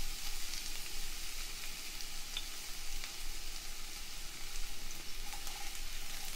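Bacon sizzling: a steady high hiss of cooking fat with scattered small pops and crackles.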